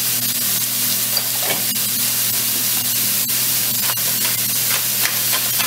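Mushrooms and cauliflower frying in a hot pan: a steady sizzle, with a steady low hum underneath.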